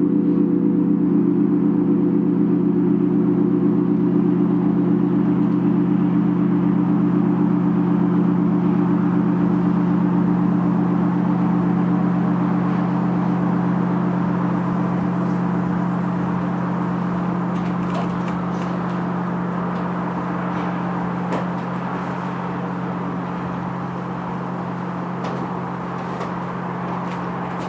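The final chord of Orthodox church bells ringing out after the last strikes: several bell tones hum on together and slowly die away, the higher ones fading first while the deepest lingers. A steady background rush comes up underneath as the bells fade, with a few faint clicks in the second half.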